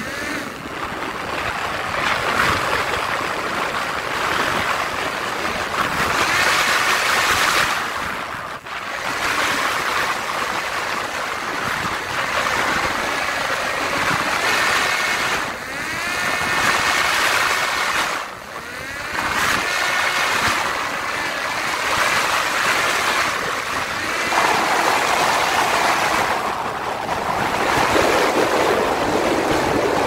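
In-flight sound aboard a Parrot Disco fixed-wing drone: air rushing over the microphone, with the whine of the electric pusher propeller motor coming and going in stretches and bending up and down in pitch as the throttle changes.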